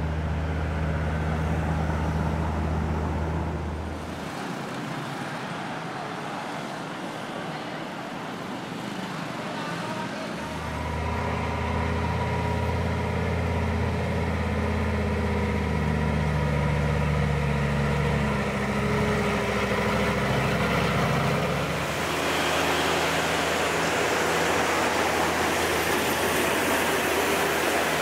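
Road traffic with a large truck's engine running; its low hum grows loud about ten seconds in and holds for about ten seconds. Near the end a steady rushing of wind and road noise takes over.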